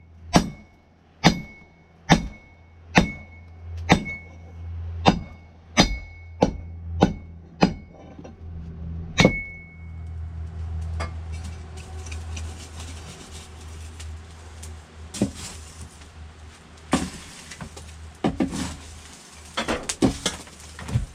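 Hand hammer striking steel on an anvil, about one blow a second, each blow leaving a short ringing tone: forging the wrench into a tomahawk head. The blows stop about nine seconds in, followed by a steady hiss and a few scattered knocks over a low hum.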